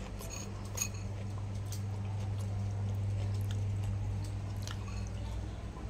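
A man chewing a mouthful of chicken noodles, with a few short clicks scattered through, over a steady low hum.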